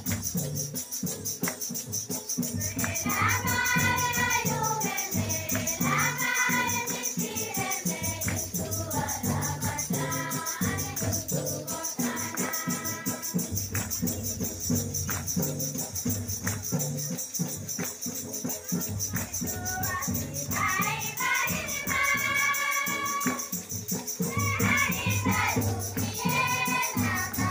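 A group of young voices singing a devotional bhajan together in phrases, over a steady beat of hand drums and a shaker-type rattle that keeps going between the sung lines.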